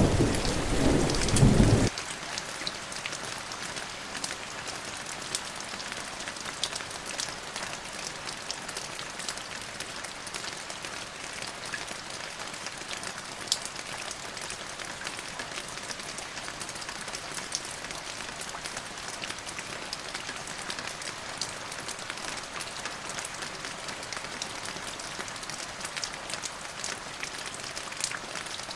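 Steady rain falling on a surface: an even hiss with scattered sharper drop ticks. A low rumble of thunder at the start cuts off abruptly about two seconds in.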